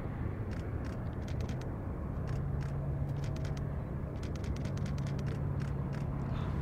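Airbus A321neo's Pratt & Whitney geared turbofan engines running at taxi power as the airliner taxis, a steady low rumble with a steady hum that sets in about two seconds in.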